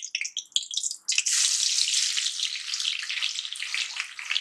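Cumin seeds crackling lightly in hot oil in a kadhai. About a second in, coarsely crushed garlic goes in and the oil breaks into a sudden, dense, steady sizzle.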